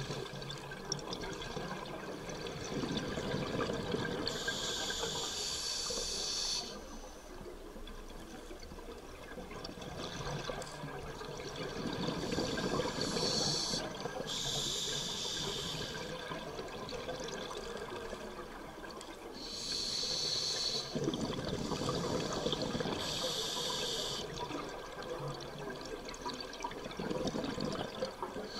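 A scuba diver breathing through a regulator underwater: a few hissing inhalations, each a second or two long, alternating with bubbling exhalations.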